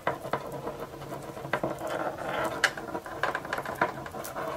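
A coiled keyboard USB cable being unwound by hand: the cable rustles and rattles, with irregular small clicks as it knocks against the plastic keyboard.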